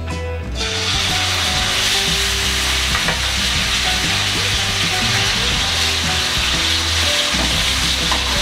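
Marinated chicken pieces dropping into hot oil in a frying pan and sizzling loudly as they begin to sauté; the sizzle starts abruptly about half a second in and stays steady.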